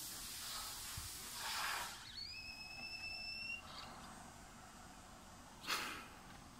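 Motorised telescopic camera crane arm retracting: a soft hiss, then a steady high-pitched whine lasting about a second and a half, with a short loud burst of noise near the end.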